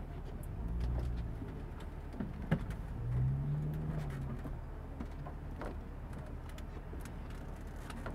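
Tour bus engine idling at a stop: a steady low rumble whose note swells briefly about a second in and again around three seconds in. Scattered light clicks run through it, with one sharp click about two and a half seconds in.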